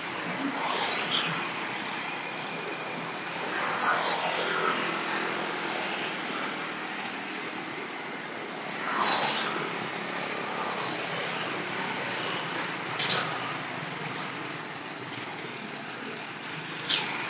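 Road traffic passing close by, mostly motorcycles and scooters with some cars: a steady traffic noise with vehicles swelling past, the loudest about nine seconds in.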